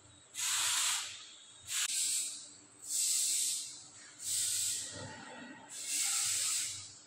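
Bursts of hissing, five in a row, each under a second long and repeating about every second and a half.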